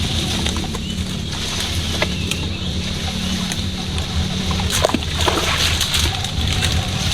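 Water splashing and sloshing, with a denser flurry about five seconds in, over a steady low hum.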